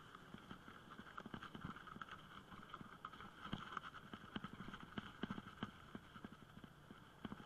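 Bicycle and its handlebar-mounted camera rattling and knocking as the bike rolls over bumpy paver-brick paving: an irregular clatter of several knocks a second over a faint steady hiss.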